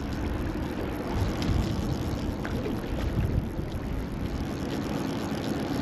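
Wind buffeting the microphone over choppy lake water lapping close by: an even rushing noise with a gusty low rumble.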